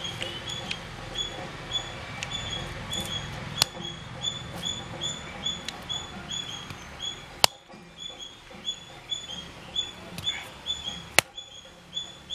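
A bird calling throughout with a short, high chirp repeated two to three times a second, over soft scraping as a green fruit's peel is rubbed off against a rough grinding stone. A few sharp clicks stand out, about every four seconds.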